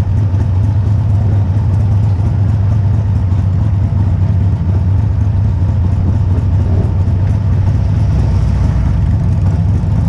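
A motorcycle engine running steadily at a low, even speed, heard from on the bike as it cruises slowly.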